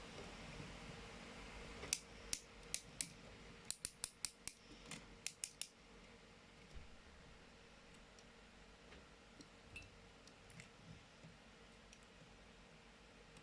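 Plastic parts of an Optimus Prime reissue toy clicking as the figure is handled: a quick run of about a dozen sharp clicks about two seconds in, then only a few faint ticks.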